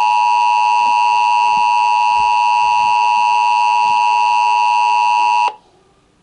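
Emergency Alert System attention signal: the steady two-tone alarm (853 Hz and 960 Hz sounded together), held loud and unchanging, then cutting off suddenly about five and a half seconds in. It heralds an Amber Alert child-abduction emergency broadcast.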